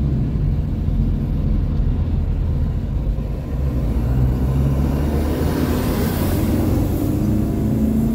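Steady low engine and road rumble heard from inside a moving taxi. About five to seven seconds in, a rush of passing traffic swells and fades, as a large truck draws alongside.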